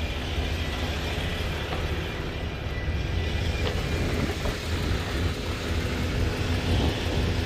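Semi-truck's diesel engine running steadily at idle, a constant low rumble.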